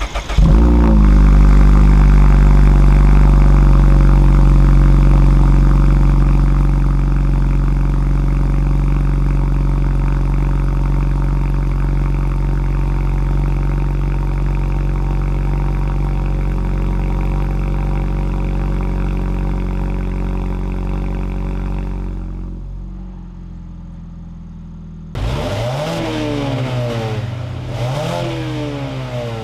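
Mazda 3's four-cylinder engine through a cat-back exhaust, heard on a phone microphone: it fires up and runs at a steady idle that eases slowly. It drops lower about 22 s in, then from about 25 s it is revved several times, the pitch rising and falling with each blip.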